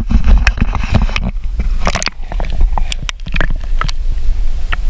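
Lake water splashing and sloshing right at the camera as it dips below the surface while a crappie is released: many short sharp splashes over a steady low rumble.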